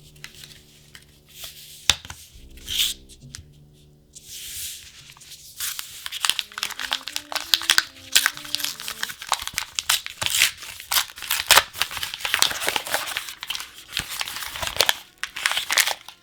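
Plastic trading-card packaging being torn open and crinkled by hand: a few scrapes and clicks, then, about five seconds in, a long run of close, loud crackling and tearing that stops shortly before the end. Faint background music plays underneath.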